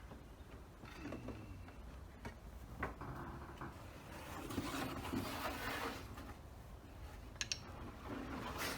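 Sheet metal being worked by hand over a wooden board: scraping and rubbing, with a few sharp knocks and clicks.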